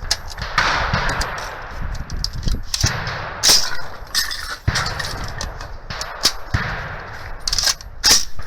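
Gunshots: several rifle shots at irregular intervals, each followed by an echoing tail, the loudest about three and a half seconds in and again near the end.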